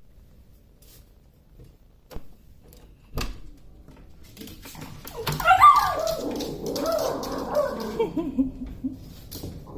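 Two sharp knocks, then a dog whining and whimpering in a wavering, rising and falling cry for several seconds, typical of a dog asking to be fed.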